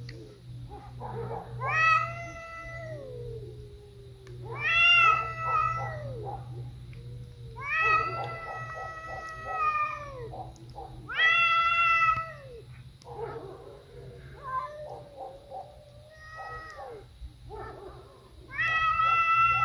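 Cat caterwauling: about five loud, drawn-out yowls, each a second or two long, with quieter, lower wavering calls between them.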